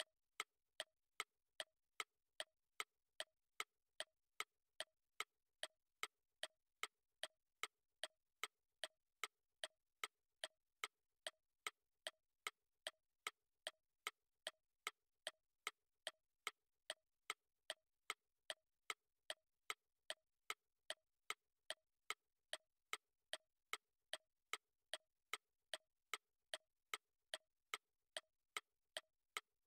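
Clock ticking steadily, with even, sharp ticks at about two a second.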